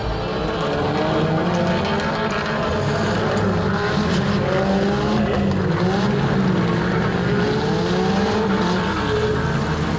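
Several small four-cylinder hatchback engines running together, their revs rising and falling as the cars drive and manoeuvre.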